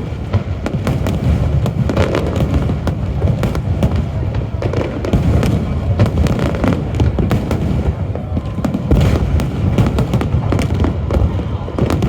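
Fireworks display going off continuously: dense rumbling booms with rapid crackling bursts layered on top, heaviest about nine seconds in.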